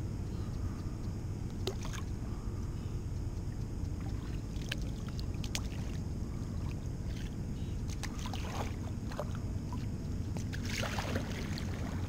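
Kayak paddle dipping and splashing in calm water, with drips and small knocks, and a longer splash near the end, over a steady low rumble.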